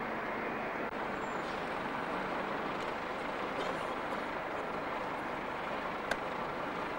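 Steady running noise of a heavy road vehicle hauling the railcar across the quay, with a single sharp click about six seconds in.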